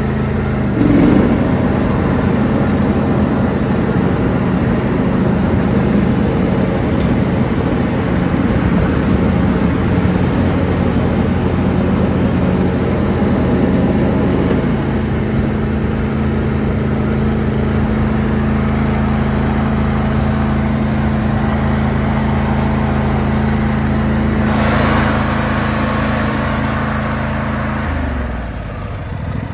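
John Deere D130 lawn tractor's 22-horsepower two-cylinder engine running steadily with the mower deck blades engaged, the sound rising about a second in. Near the end the engine note drops as it slows toward idle.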